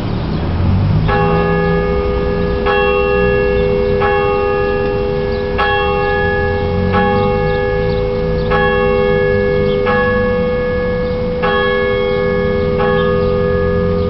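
Church bells ringing, starting about a second in. There is a stroke about every second and a half, and the hum of the bells rings on between strokes.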